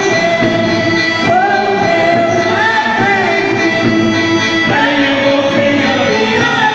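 A song: singing voices holding and gliding between notes over steady instrumental accompaniment.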